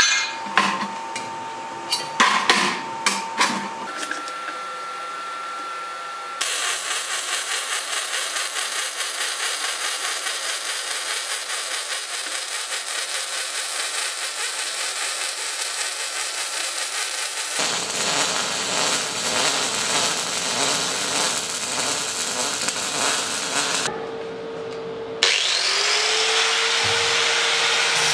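MIG welder laying a bead along a seam between two steel plates: a steady crackling hiss that runs for long stretches, after a few sharp clicks at the start. Near the end an angle grinder with a flap disc starts and grinds the weld, its motor whine steady over the rasp of the disc on steel.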